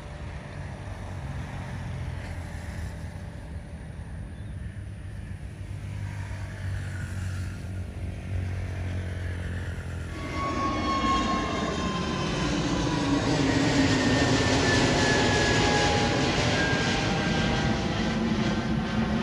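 A low, steady rumble of distant aircraft engines. About ten seconds in it gives way suddenly to the much louder noise of an Airbus A320neo's twin jet engines at takeoff power, with several whining tones slowly falling in pitch as the airliner climbs past.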